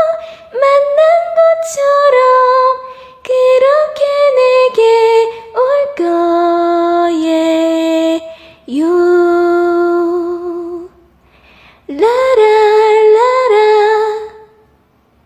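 A woman singing a slow, lullaby-like song melody with long held notes, her voice dying away near the end.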